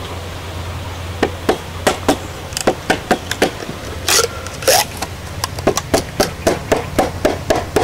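A knife chopping and splitting a short stick into thin strips: a run of sharp knocks that quickens to about three or four strokes a second, with a couple of longer splitting rasps about halfway through.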